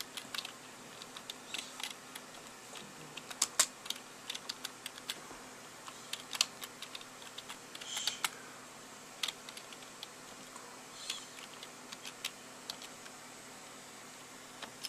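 Computer keyboard keys pressed one by one in slow, irregular clicks with pauses between them, typing a short line of boot options. A faint steady hum sits underneath.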